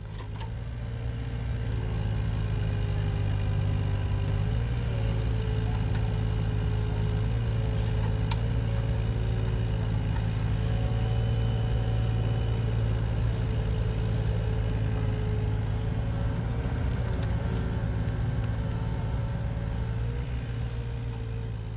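Heavy-equipment engine running steadily at a constant speed, with a low hum and a slightly wavering higher tone. It fades in at the start and fades out near the end.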